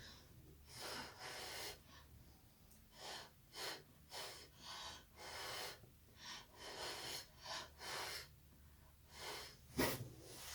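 A series of short puffs of breath blown onto wet acrylic pour paint to push it around, about ten separate hissy puffs with a stronger one near the end.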